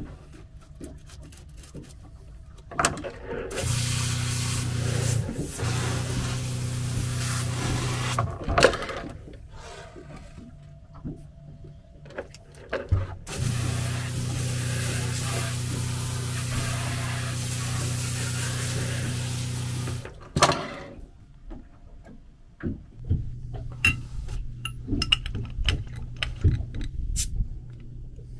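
Washdown hose spraying water onto a boat's deck, the pump's steady hum under the hiss of the spray, in two runs of several seconds each. Scattered knocks and clicks follow near the end.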